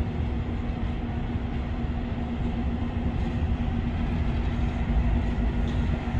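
EMD GP9 diesel locomotive's 16-cylinder two-stroke 567 engine running steadily as it moves a string of hopper cars, a low rumble with a steady hum.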